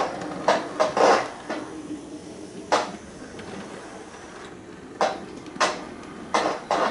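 OO-gauge model steam locomotives and wagons running on a model railway layout: a faint steady motor hum with sharp, irregular clicks and clacks from the wheels and couplings on the track.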